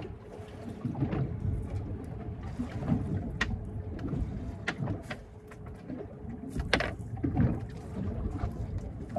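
Sounds aboard a small boat at sea: a steady low wash of water and wind on the phone microphone, with a couple of sharp knocks, about three and a half and seven seconds in.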